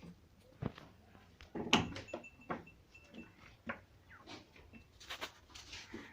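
Goats moving about in a pen: scattered knocks and shuffling, the loudest knock about two seconds in.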